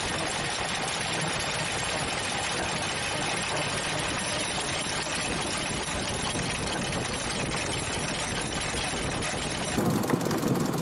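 1907 Delage Type F racing car on the move, heard from under the car at the rear axle: a steady rush of tyre and road noise with the engine and drivetrain running beneath it. Near the end the sound turns louder and lower, the engine coming through more strongly.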